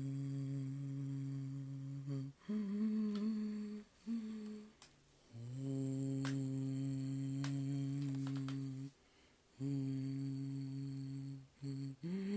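A voice humming long, held low notes, with short breaks for breath between them. The pitch steps up to a higher note a couple of seconds in, drops back down, and rises again near the end. A few faint clicks fall in the middle.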